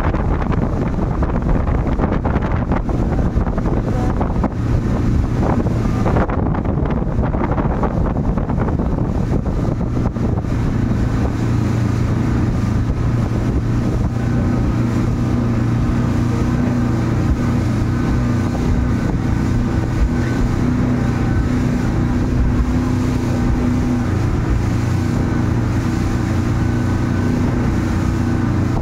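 Speedboat's outboard motor running steadily at speed under the load of towing a banana boat, with wind buffeting the microphone. The wind noise is strongest for the first ten seconds or so; after that the engine's steady tone stands out more clearly.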